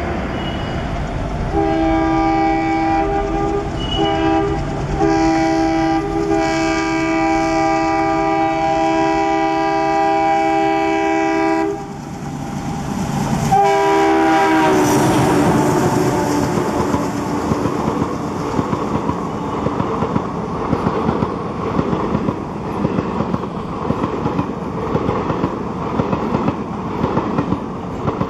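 An Indian Railways electric locomotive's multi-tone horn sounds in several long blasts with short gaps for about ten seconds. After that a diesel locomotive passes close with a horn blast that drops in pitch as it goes by. Its passenger coaches then rush past, with the steady rhythmic clickety-clack of wheels over rail joints.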